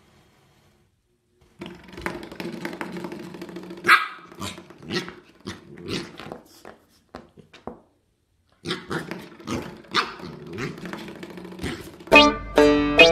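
Corgi puppy barking and growling in short irregular bursts, starting about a second and a half in, with a brief break about 8 s in.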